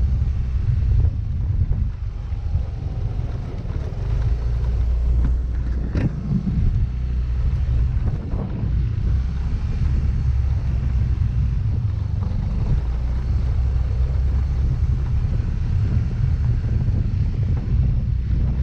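Yamaha Mio Gravis 125 cc scooter under way: a steady low rumble of engine, tyres and wind buffeting on the microphone, with one sharp knock about six seconds in.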